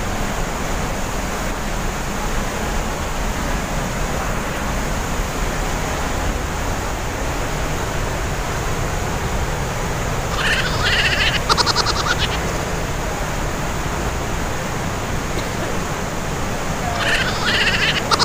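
Steady rush of a glacier-fed waterfall pouring through a rock gorge inside the mountain. Twice, about ten seconds in and again near the end, a short high-pitched call ending in a quick rattle sounds over it.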